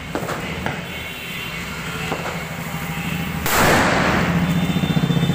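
A Diwali firecracker bomb goes off on the road with one loud bang about three and a half seconds in, after its fuse burns.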